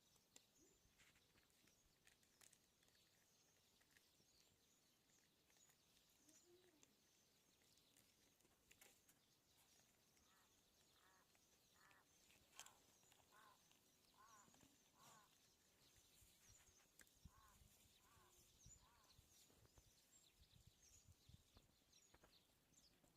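Very faint outdoor ambience of bird calls: high chirping throughout and a series of short repeated calls in the middle.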